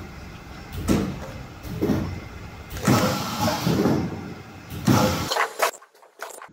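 Rotary tube filling and sealing machine running: a steady low hum with several loud bouts of mechanical noise about a second apart. The sound drops away abruptly about five seconds in.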